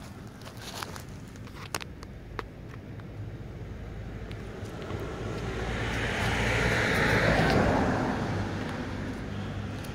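A car passes on the road. Its engine and tyre noise swells to a peak about seven seconds in, then fades, over a steady low hum. A few sharp clicks come in the first few seconds.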